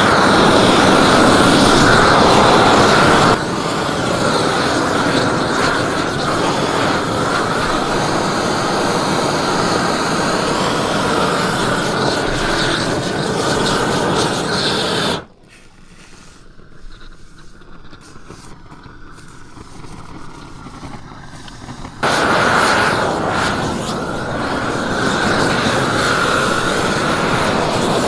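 Propane roofing torch running with a steady roar as it heats a modified bitumen membrane. About halfway through the sound drops abruptly to a much quieter stretch for several seconds, then comes back just as abruptly.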